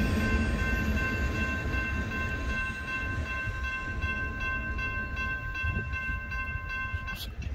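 Railroad crossing warning bell ringing steadily, then cutting off about seven seconds in with a click as the crossing clears. Underneath, the low rumble of the departing intermodal freight train slowly fades.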